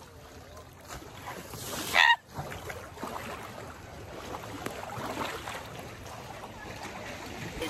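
Water sloshing and splashing as an African elephant wades and plays in a pool. About two seconds in, a short, loud, high-pitched honk-like call stands out.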